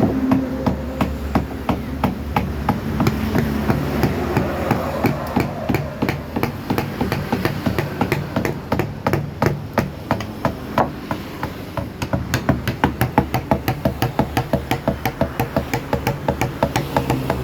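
Wooden mallet striking a carving chisel into a wooden door panel: a long run of sharp knocks, settling to about three a second in the second half, over a steady low hum.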